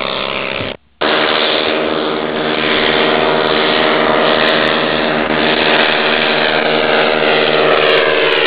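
Lazair ultralight's twin small engines and propellers droning steadily as the aircraft flies toward the listener. The sound cuts out briefly about a second in. Near the end the pitch begins to fall as the plane passes overhead.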